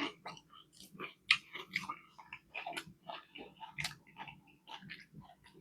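Close-miked chewing of a fish fillet sandwich: irregular wet mouth clicks and smacks, a few a second, with a sharper smack about a second in and another near four seconds.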